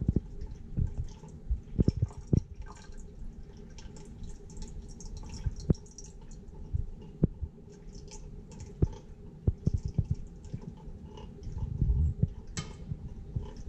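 Palladium chloride solution poured in a thin stream from a small glass beaker into a stirred slurry of activated carbon in water: trickling and dripping with scattered clicks and light knocks, over a faint steady hum. A low rumble comes near the end.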